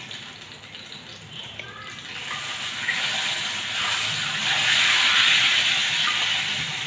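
Ghee-fried coconut pieces and their hot ghee are poured from a frying pan into a pot of payasam, crackling and sizzling as the hot ghee hits the milk. The hiss builds about two seconds in and stays strong to near the end.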